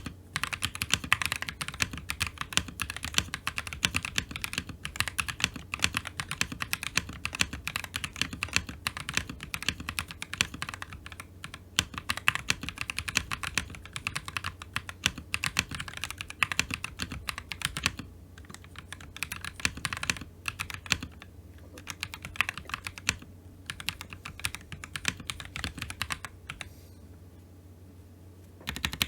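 Typing on a mechanical keyboard with lubed Akko POM Brown tactile switches, a fairly deep sound. Fast, dense keystrokes thin out after about 18 seconds, stop for about two seconds near the end, then start again.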